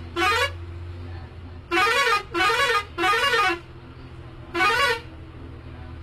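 Tourist bus's melody air horn sounding five short musical blasts, three of them in quick succession in the middle, each note sliding up and down in pitch. The bus engine hums low and steady underneath.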